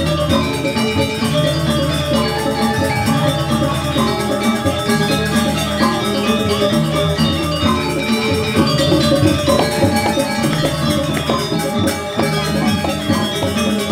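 Balinese gamelan music: ringing bronze metallophones playing a dense, steady pattern with drumming underneath.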